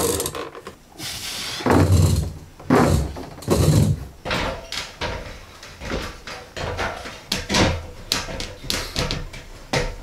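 Irregular knocks and thumps of someone climbing a metal ladder and moving about on wooden loft framing. Heavy thuds come about two to four seconds in, then a run of lighter taps and clanks.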